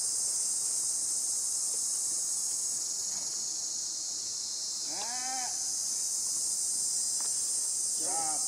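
Steady high-pitched drone of a chorus of insects in the trees. Two short calls, each rising then falling in pitch, break through it about five and eight seconds in.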